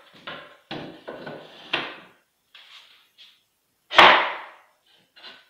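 A wooden board and a pipe clamp handled on a wooden workbench: a few short rubbing and knocking noises in the first two seconds, then one sharp, loud wooden knock about four seconds in as the clamp's jaw is brought against the board.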